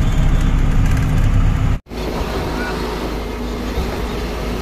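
Truck running at highway speed, heard from inside the cab: a steady engine drone with road noise. A brief dropout almost two seconds in, then steady road and wind noise with less of the engine.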